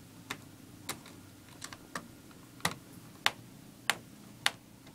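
A small Phillips screwdriver turning a screw back into a laptop's bottom cover, giving a string of sharp, separate clicks roughly every half second.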